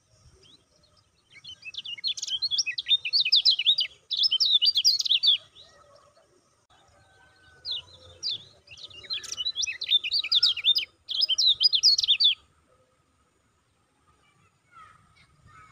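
Kecial kuning (lemon-bellied white-eye) singing two bouts of fast, high chattering song, each about four seconds long and broken by a short pause, with a few seconds' gap between them.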